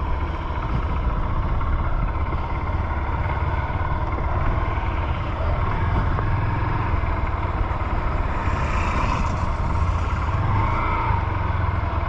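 Honda CG 150 Fan motorcycle's single-cylinder engine running steadily while riding, with the empty, light top box banging about on its rack.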